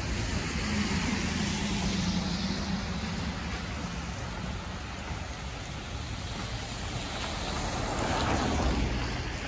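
Street traffic: cars driving past on a wet road, their tyres hissing. The sound swells as one passes close about eight seconds in.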